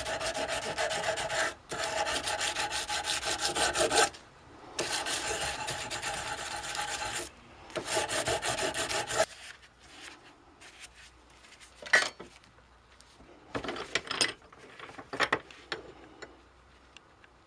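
Metal file rasping in rapid strokes across the weld on a steel motorcycle kickstand clamped in a vise, smoothing the weld down, in four runs broken by brief pauses. After about nine seconds the filing stops and a few scattered clinks and knocks follow as the part is handled.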